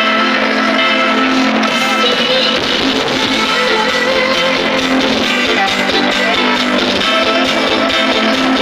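Loud, continuous music led by guitar.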